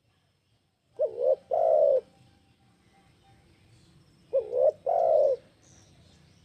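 Spotted dove (tekukur) cooing twice, about three and a half seconds apart. Each call is a short wavering double note followed by a longer drawn-out coo. Faint high chirps sound near the end.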